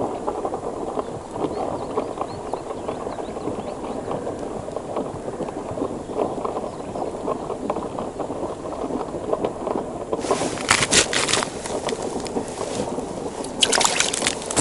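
Continuous low crackling noise throughout. About ten seconds in, and again near the end, come short bursts of sharp rustling and handling noise as a roach is hooked and pulled up through the ice hole by hand on the line.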